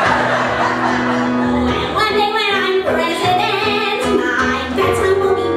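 A woman singing a musical-theatre song to keyboard accompaniment. Held keyboard chords come first, and the voice comes in about two seconds in.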